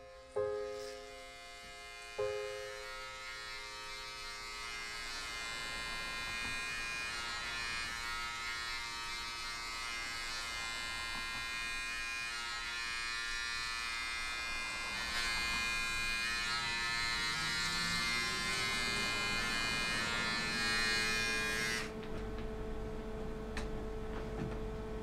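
A few soft piano notes, then an electric shaver buzzing steadily for about twenty seconds. It cuts off suddenly near the end, leaving a low hum.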